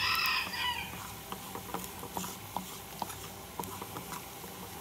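Chopped onions frying in a nonstick pan, with a light sizzle, and a wooden spatula scraping and tapping against the pan in scattered small clicks. A rooster's crow trails off in the first second.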